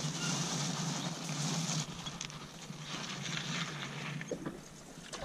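Steady outdoor wind hiss that eases a little about two seconds in, with a few faint ticks.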